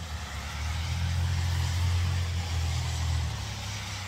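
A car driving past, its engine hum and road noise growing to a peak about two seconds in and then fading.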